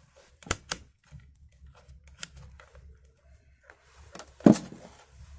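Handling clicks from a digital multimeter and wires being moved by hand: a pair of sharp clicks as the meter's rotary dial is turned, a few lighter clicks, and a louder dull knock about four and a half seconds in as something is set down. A faint low hum lies underneath.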